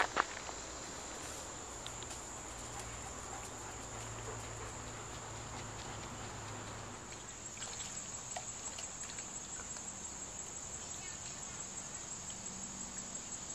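Steady high-pitched chorus of insects buzzing, with small faint ticks in the second half.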